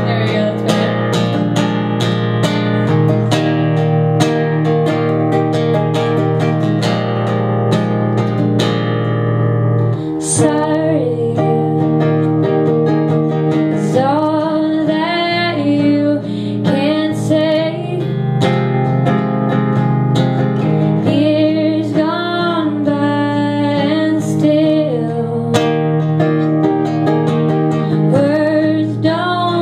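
Live pop-folk song: an acoustic guitar played to a steady beat with cajon accompaniment, and a woman starts singing about ten seconds in.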